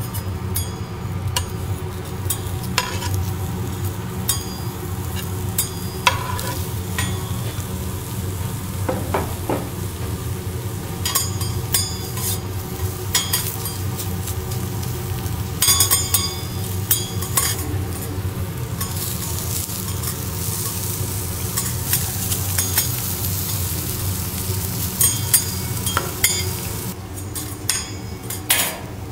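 Sliced vegetables sizzling on a hot teppanyaki steel griddle, with metal spatulas clicking and scraping on the plate. The sizzle grows louder for several seconds past the middle, over a steady low hum.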